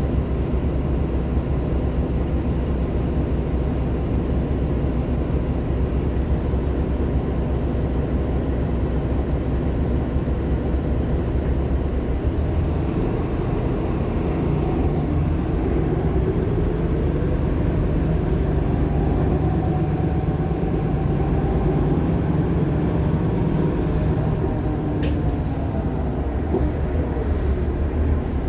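Interior ride sound of a 2015 Nova LFS Artic hybrid bus, its Cummins ISL9 diesel and Allison H50 EP hybrid drive running with a steady low drone whose pitch rises about halfway through. A thin high-pitched squeal sets in a little before the middle and holds for several seconds, the squealing noise heard on several of these hybrid artics; a single sharp click comes near the end.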